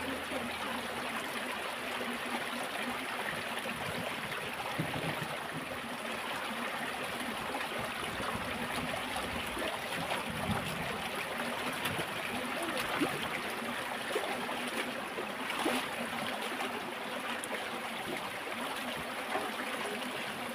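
Small shallow stream running and trickling over rocks, a steady babble of water, with a few light splashes from people moving in it.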